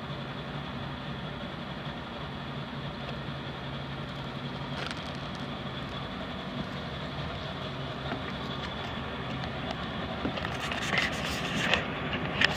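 A boat's engine running steadily with a low hum, with a few sharp knocks near the end.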